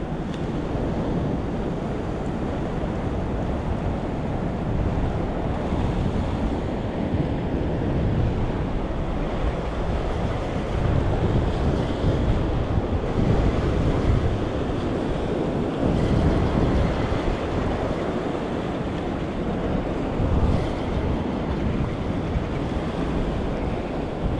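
Wind buffeting the microphone over ocean surf washing against shoreline rocks, a steady rushing noise with no break.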